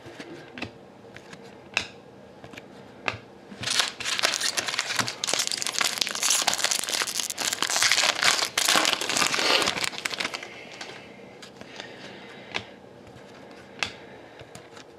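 A trading card pack wrapper being torn open and crumpled, a dense crinkling from about four seconds in until about ten seconds in. Scattered sharp clicks of cards being handled come before and after it.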